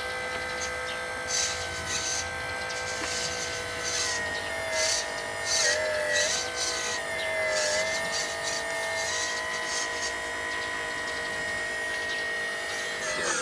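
Electric drive motor and gearbox of a homemade 1/6-scale RC truck running with a steady whine. The pitch sags a little a few times in the middle and drops near the end as the motor slows, with short hissy rasps over it.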